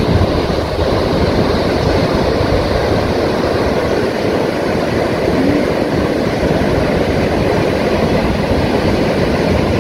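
Surf breaking and washing up a sandy beach: a loud, steady rush of waves.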